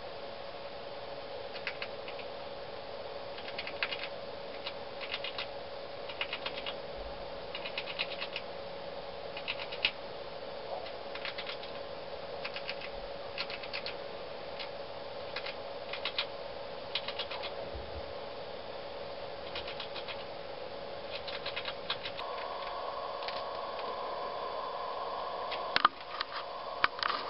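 Red squirrel gnawing and cracking its food: irregular clusters of small, sharp crackling clicks every second or two, with a louder cluster near the end, over a steady hum.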